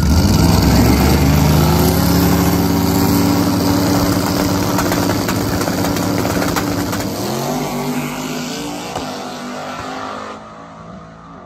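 Turbocharged LS-based V8 of a Chevy Colorado drag truck running loud at the starting line, then launching. The engine note rises as it accelerates away down the strip, fading with distance and dropping off sharply near the end.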